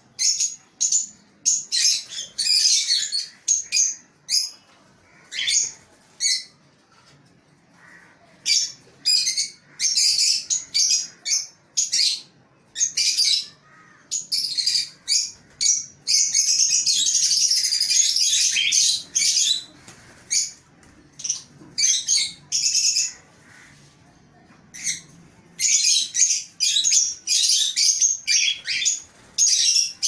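Lovebirds and a cockatiel in an aviary chirping in many short, high-pitched bursts. The calls thicken into dense chatter about halfway through and again near the end.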